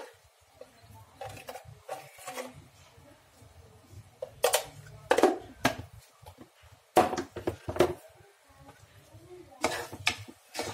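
A cooking spoon scraping and knocking against a pan as frying onions are stirred, in groups of sharp strokes a second or two apart.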